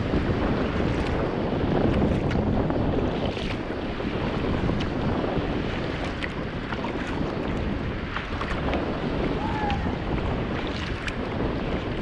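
Wind buffeting an action camera's microphone over sea water lapping and splashing around a touring kayak, with scattered small splashes.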